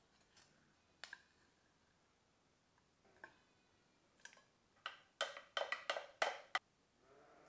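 A metal spoon clinking against a glass jug: a few faint clicks, then a quick run of about seven sharp, ringing taps in the second half. A faint bleat starts near the end.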